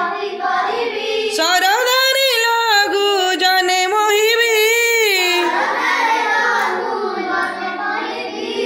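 Children singing an Odia children's rhyme together in a sing-song chant, one voice standing out clearly for a few seconds in the middle.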